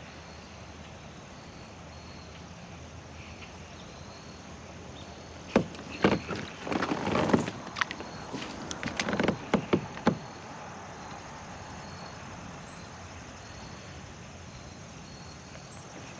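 Quiet outdoor background hiss, broken between about five and ten seconds in by a short run of sharp knocks and scuffs from handling fishing gear.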